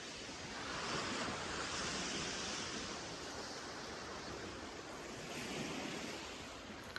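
Lake Ontario waves washing onto the beach: a steady rush that swells and eases every few seconds.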